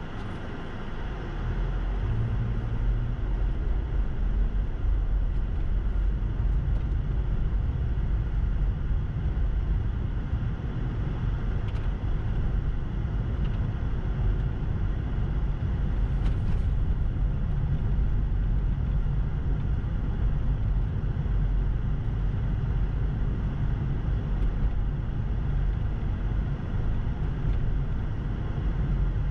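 A car driving on a snow-packed road, a steady low rumble of engine and tyres that grows louder as it pulls away from a stop about a second and a half in, then holds steady at cruising speed.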